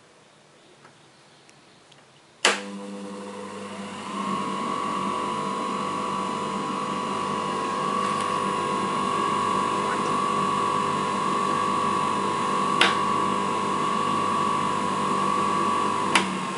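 Optical hand edger's AC motor switched on with a sharp click about two and a half seconds in, then running steadily with a hum and, from about four seconds in, a high even whine from the spinning grinding wheels. Another single click comes near the end, where the whine stops and the sound drops a little.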